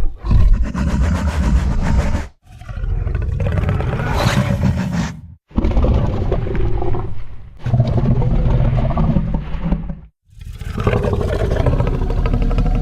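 A series of deep roar sound effects: about five long roars, each two to three seconds, broken by short silences.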